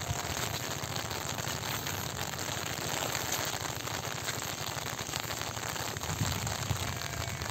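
Heavy rain falling steadily: a dense, even patter of many small drops.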